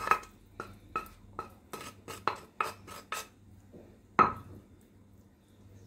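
Wooden spoon knocking and scraping against a non-stick frying pan as cooked chicken pieces are pushed out: short knocks about three a second for about three seconds, then one louder knock about four seconds in.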